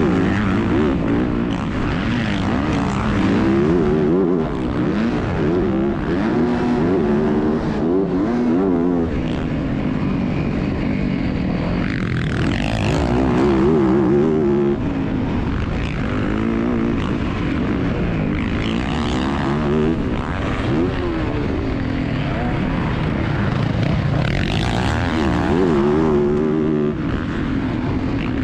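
Motocross bike's engine heard from the rider's helmet, revving up and falling back again and again as the rider accelerates, shifts and backs off around the dirt track.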